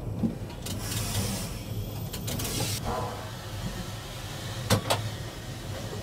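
Steam locomotive rolling slowly at walking pace: a steady low rumble with short hisses, and two sharp metal clacks close together about three-quarters of the way through.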